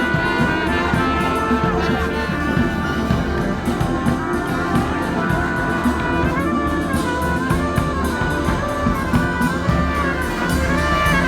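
Live brass band playing, with horns carrying a wavering melody over steady drum beats.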